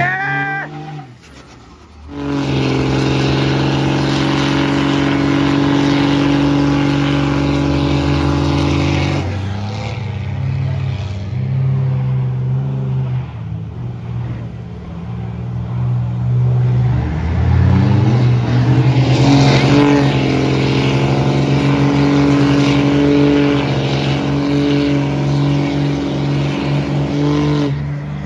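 Pickup truck engine held at high, steady revs during a burnout, with tyres spinning. The revs sag about ten seconds in, climb again around seventeen seconds in and hold high to the end.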